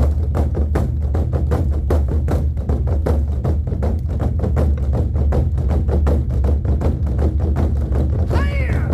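An ensemble of large Korean drums is beaten in a fast, dense rhythm over a deep, continuous boom, in a piece meant to evoke charging horses. A short high call rises and falls near the end.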